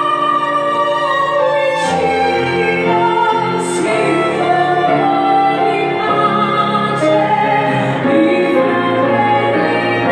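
Female vocalist singing in a classical, operatic style, accompanied by piano, violin and cello, with long held notes over sustained string and piano chords. Low bass notes come in about two seconds in.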